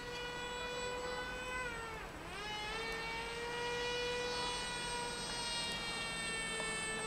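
Electric motor and propeller of a Z84 flying wing in flight, a steady high whine with many overtones. About two seconds in the pitch dips sharply, then climbs back and holds.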